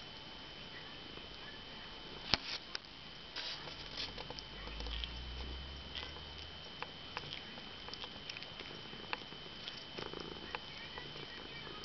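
Domestic cat sucking on a plush toy sheep, making many small wet clicks and smacks, with a sharper click about two seconds in. Soft purring underneath swells for a couple of seconds near the middle.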